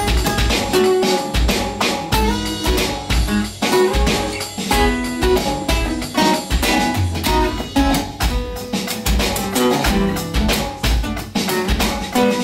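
Live instrumental jam: two acoustic guitars strumming and picking together over a drum kit keeping a steady beat with a kick drum.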